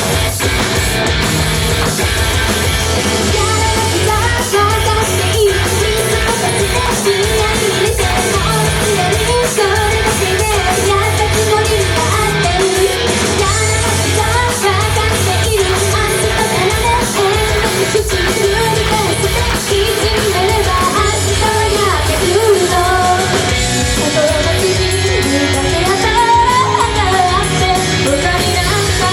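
Loud rock song performed live, with guitar and a driving drum beat, and singing that comes in about three seconds in and carries on.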